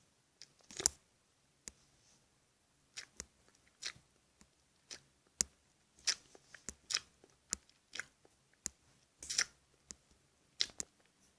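Scattered light clicks and short crackling rustles at irregular intervals, close to the microphone.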